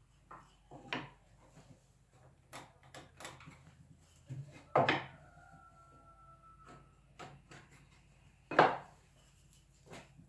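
Scattered knocks and taps of hard objects set down on or against wood, with two louder knocks about five and eight and a half seconds in; the first leaves a short ringing tone.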